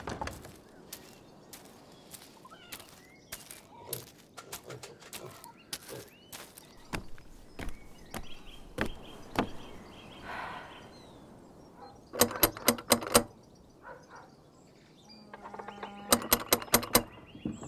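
Outdoor sound-effects ambience: birds chirping, with scattered footsteps. Two quick runs of loud knocks, each lasting about a second, come two-thirds of the way through and again near the end.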